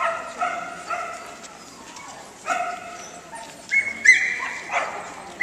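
A dog barking and yelping in a string of short, high-pitched calls, some in quick succession and some spaced apart.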